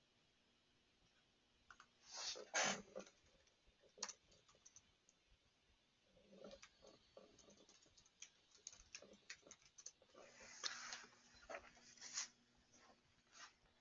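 Faint, scattered computer keyboard typing and clicks, irregular taps spread through the quiet, with two louder rustling swells about two and ten seconds in.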